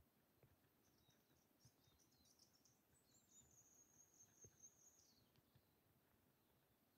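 Near silence: faint, high-pitched bird chirps in the bush, then one high note held for about two seconds.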